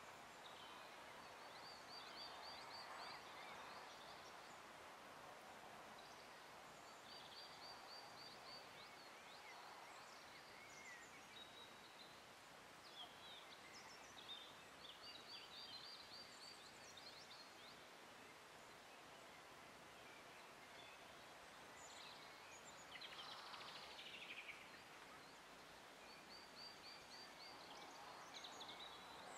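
Faint outdoor ambience with birds calling: a short, rapid high trill repeats about four times, with scattered chirps and one quick falling call a little past two-thirds through, over a soft steady hiss.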